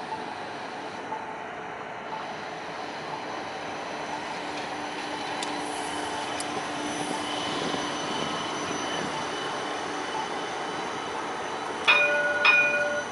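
A CAF Urbos streetcar runs past on curved track with a steady rolling hum that swells as it comes close. Near the end there are two sudden, loud metallic rings about half a second apart.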